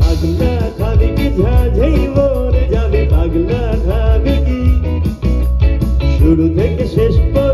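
Live band playing a song loudly, with heavy bass and a steady beat under a melodic lead line.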